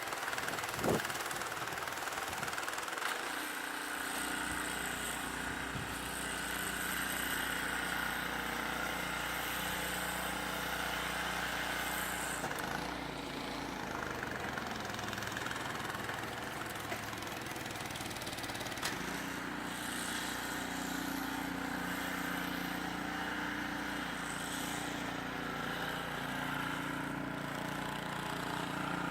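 An engine running steadily at idle, with a single sharp click about a second in.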